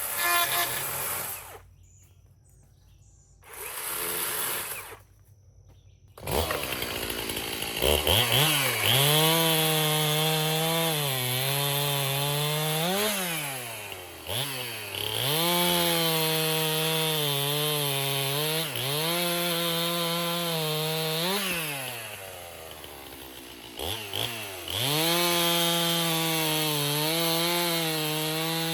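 Stihl chainsaw cutting a log. After a couple of short bursts it runs at high throttle, its engine note sagging as the chain bites and climbing again when it frees up, with a brief drop to a lower level near the end.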